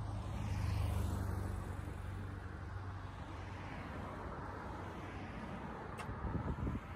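Cars passing on the road beside the pavement, with steady tyre and engine noise; one goes by loudest about a second in, and another passes close near the end.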